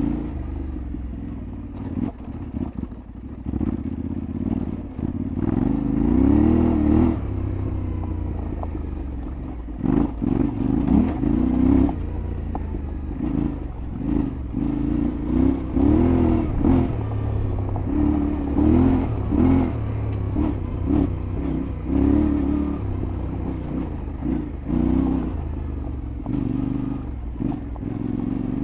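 Yamaha Ténéré 700 World Raid's parallel-twin engine revving up and easing off again and again while riding off road, with scattered knocks and clatter over rough ground.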